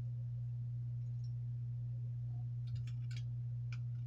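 A steady low hum, and about three seconds in a short run of light metallic clicks as the stainless slide and recoil-spring assembly of a Ruger 1911 pistol are handled and lined up with the frame.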